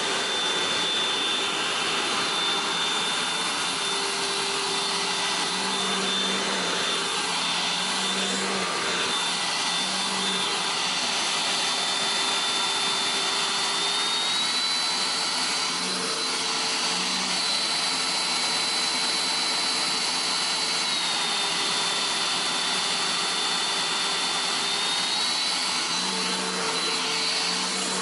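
Cordless handheld vacuum cleaner (GWELL G5) running steadily: a high motor whine over the rush of air. Its pitch steps up slightly about halfway through, drops back, and rises again near the end.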